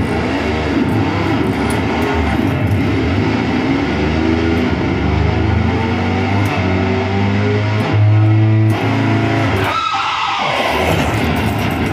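Distorted electric guitar imitating a motorbike, with pitched engine-like notes shifting as it changes gear. About ten seconds in, a falling glide stands for the skid and crash.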